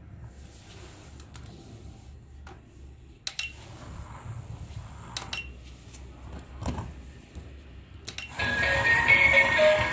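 A few sharp clicks over a low steady hum as electric toys are handled, then a loud electronic toy tune starts playing near the end.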